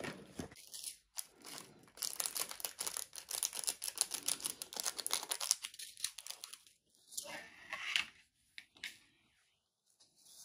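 A small plastic bag of diamond painting drills being torn open and handled: rapid crinkling and crackling of plastic, dense at first, then in scattered bursts.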